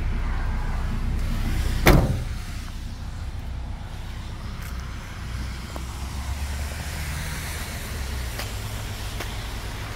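Volkswagen Crafter's diesel engine idling steadily while still cold, with one loud bang about two seconds in.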